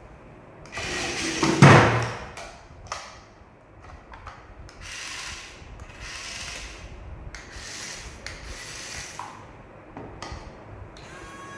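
Rubbing and scraping handling noises in a run of strokes, with a loud knock about a second and a half in.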